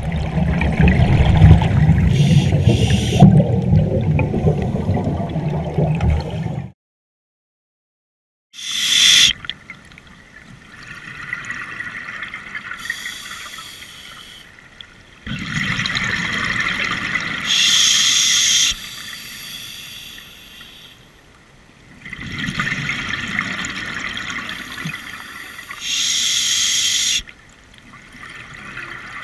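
Scuba breathing recorded underwater: a loud rush and gurgle of regulator exhaust bubbles for the first six seconds or so, then the sound cuts out for about two seconds. After that, slower breaths come every six to eight seconds, each a swell of bubbling ending in a short hiss.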